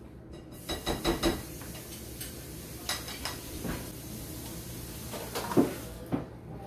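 Spatula and frying pan clinking and knocking a few times as a tortilla is patted down in the pan, with a cluster of knocks about a second in and the loudest about five and a half seconds in. A steady low hum runs underneath.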